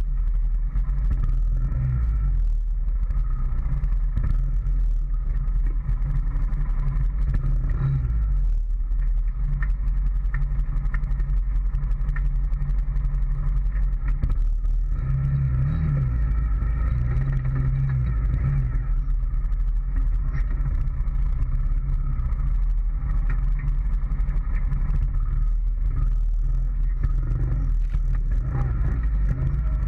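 2013 Honda Foreman ATV's single-cylinder engine running steadily as it rides along a trail, picked up close from the front rack, briefly picking up revs about halfway through. Frequent small knocks and rattles run under the engine.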